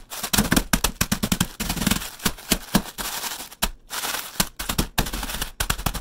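A sleeve of Ritz crackers crushed by hand inside its plastic wrapper, the crackers crunching and crackling in a quick, irregular string of sharp snaps.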